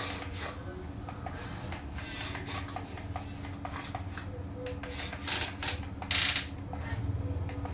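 Small electric gear motors of a radio-controlled excavator whirring as its arm and bucket work into sand. Two short, louder bursts come about five and six seconds in.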